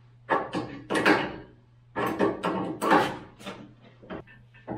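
Irregular metal clanks and knocks, about a dozen sharp hits in bunches with short ringing tails, then lighter clicks near the end: hand tools being worked on a large 1-13/16-inch hex-head nut on a steel tube-bumper swingout with an improvised wrench setup.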